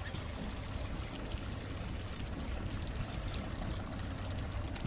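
Water lapping and trickling against the hull of a small fishing motorboat, a steady low wash.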